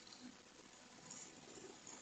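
Near silence: a faint steady hiss with a few soft, indistinct rustles.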